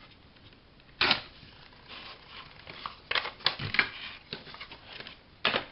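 Paper being handled on a desk: a few short rustles and taps, with a cluster of quick crinkles about three seconds in.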